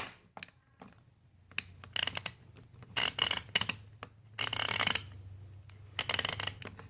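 GearWrench 84-tooth ratchet being worked back and forth, its pawl giving four runs of fine, rapid clicking.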